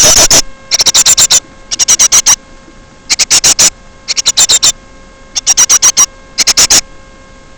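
Small birds calling very close to the microphone in rapid, high-pitched chattering bursts. Each burst is a quick string of sharp notes lasting about half a second, repeated roughly once a second.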